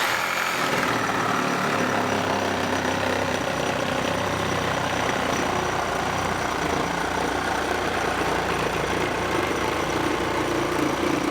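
Reciprocating saw with a Diablo 12-inch pruning blade running steadily while cutting through a piece of wood.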